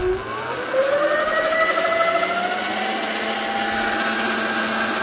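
Sur-Ron X electric dirt bike's motor and drivetrain whining as the throttle is opened, in its low power mode. The whine rises in pitch over the first two seconds, then holds steady at top speed.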